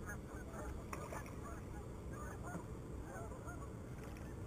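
A flock of geese honking, many short calls overlapping one another, over a steady low rumble.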